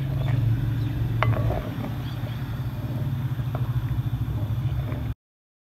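A steady low rumble with a few light knocks of a spoon against a clay cooking pot as raw chicken pieces are turned in oil. The sound cuts off suddenly near the end.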